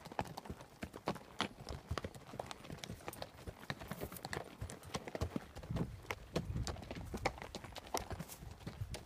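Saddle and pack horses walking a dirt trail at a walk, their hooves clopping in an uneven patter of several steps a second.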